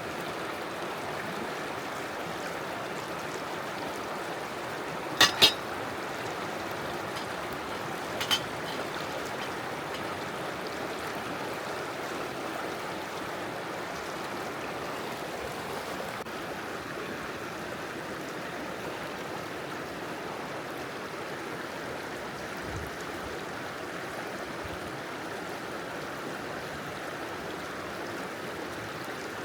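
River water rushing steadily past. Two sharp knocks come in quick succession about five seconds in, and a fainter one about eight seconds in.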